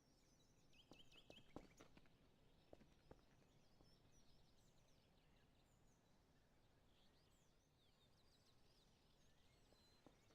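Near silence: faint outdoor ambience with scattered distant bird chirps and a few soft clicks.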